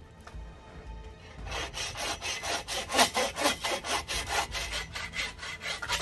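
Hand saw cutting through a dead wooden branch in quick, even back-and-forth strokes, starting about a second and a half in.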